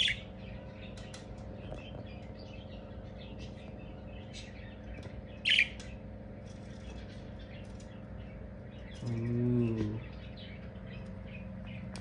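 Budgerigars chirping and chattering on and off, with a louder sharp call right at the start and another about five and a half seconds in. A short low hum comes about nine seconds in, over a steady low background hum.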